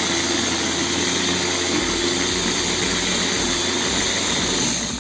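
Electric food chopper's motor running steadily, its blades grinding fresh red chilies into a paste in the glass bowl; it cuts off right at the end.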